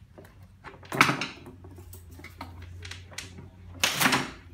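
A two-part mold being pried open off a cured carbon fiber tube: a sharp crack with a brief ring about a second in, then a louder, longer crack near the end as the top half comes loose.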